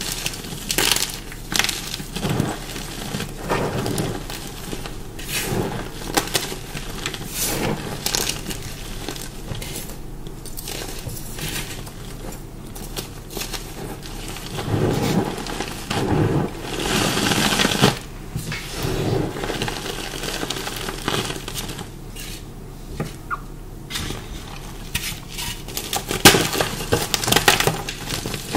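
Chunks of dyed, pasted chalk being bitten and chewed close to the microphone: irregular dry crunches and snaps, with a denser stretch of grinding crunch a little past the middle. The dyeing and pasting have made this chalk crunchy rather than soft.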